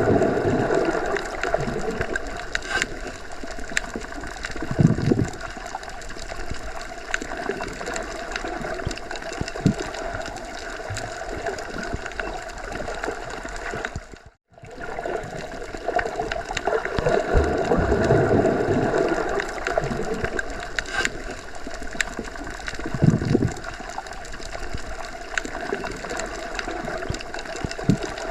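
Underwater water ambience: a steady rush of water with occasional swells. It cuts out for an instant about halfway, and the same stretch then repeats as a loop.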